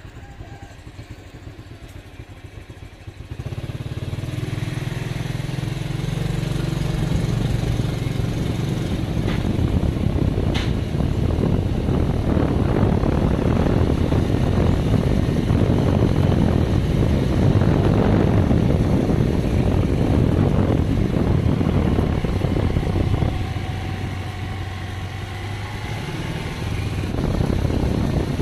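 Motorbike engine running as the bike rides along a lane, with a rushing noise over it. It gets much louder about three seconds in as the bike pulls away, drops back for a few seconds near the end, then picks up again.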